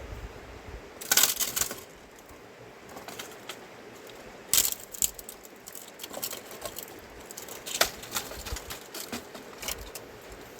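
Light clinks and clatters of small hard objects being handled, in a few short scattered groups, the loudest about a second in and another about four and a half seconds in.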